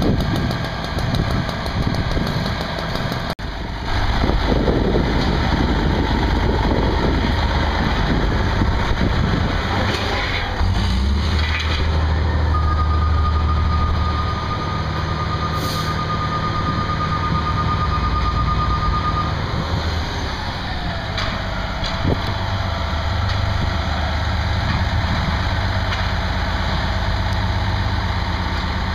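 Fire apparatus diesel engines running at idle at a fire scene, a steady low rumble. A steady high tone holds for several seconds midway.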